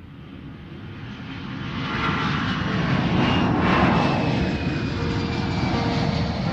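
Airplane flying past: an engine roar that swells over the first few seconds, peaks about four seconds in with a falling whine, then eases off.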